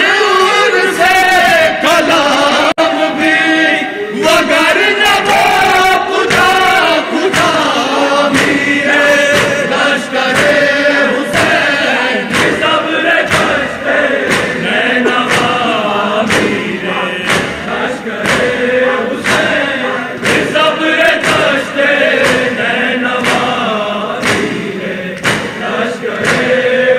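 Men's voices chanting an Urdu noha lament, a lead reciter at a microphone answered by a chorus. A steady beat of hands striking chests (matam) keeps time under the singing.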